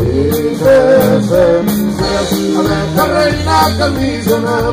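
Live norteño band playing an instrumental break: a wavering accordion melody over guitar, bass and a drum kit keeping a steady beat.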